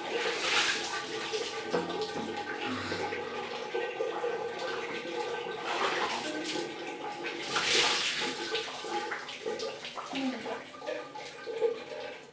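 Water splashing as a child pours mugfuls of water from a plastic mug over himself and into a plastic bucket, echoing in a small tiled bathroom. The biggest splashes come about half a second, six and eight seconds in.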